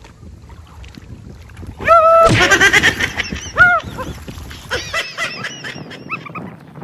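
A man shouts and plunges into cold lake water with a loud splash about two seconds in, then splashes as he swims off, with more short shouts.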